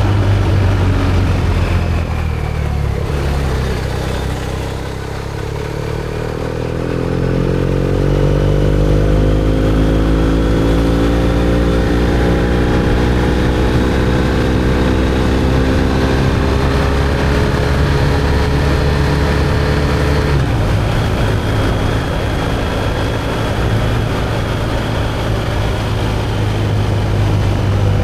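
BMW R1250GS Adventure's boxer-twin engine through an Akrapovic slip-on exhaust while riding. The note dips about five seconds in, then rises steadily as the bike accelerates. It holds an even pitch while cruising and changes again about twenty seconds in.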